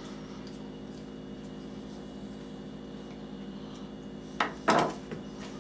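Steady low hum, then a few short scraping sounds about four and a half seconds in, from a screwdriver working the screw that holds the washer on a faucet valve stem.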